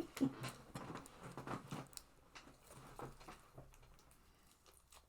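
Faint small clicks and handling noises, stopping about three and a half seconds in.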